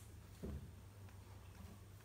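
Faint room tone with a low hum, and one soft, dull thump about half a second in as a baby monkey clambers on the bars of a plastic playpen.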